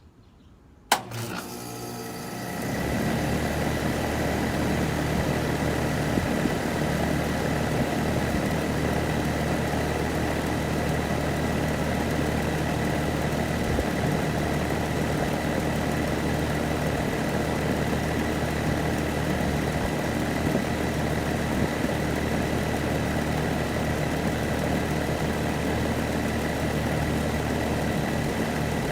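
Rheem central air conditioner outdoor unit starting up: a sharp click about a second in, then its Copeland scroll compressor and condenser fan come up to speed within a couple of seconds and settle into a steady running hum.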